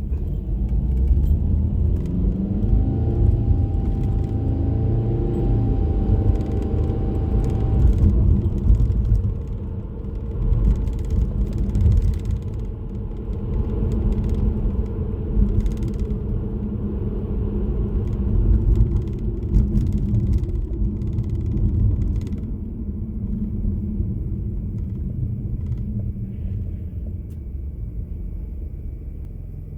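Car on the move: steady engine and road rumble, with the engine note rising as it accelerates in the first several seconds, then easing off and going quieter after about 22 seconds.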